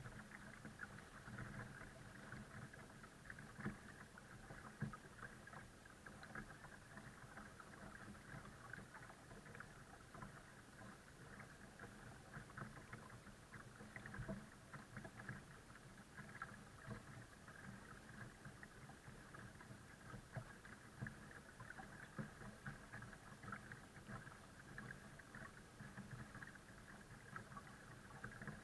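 Faint water lapping and trickling at the hull of a folding kayak being towed slowly through calm water, a steady crackle of small splashes. A faint steady hum lies under it.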